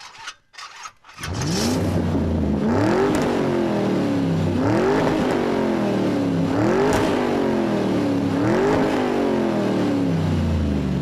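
A few short clicks, then a car engine starts accelerating hard about a second in and runs up through the gears: its pitch climbs and drops back at each shift, about every two seconds, five times, easing off near the end.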